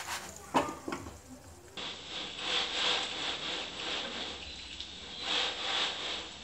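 Scraping and rubbing from a crisp, egg-coated chapati in a nonstick frying pan on a gas stove. A few light knocks come about half a second in, then two longer rasping swells.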